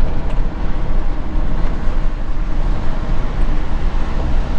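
Camper van driving along a road: a steady rumble of engine and tyre noise with no change.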